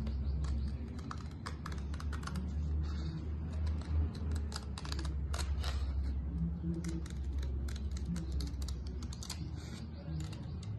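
Scissors cutting thin cardstock: a quick, irregular run of short crisp snips and clicks. A steady low hum runs underneath.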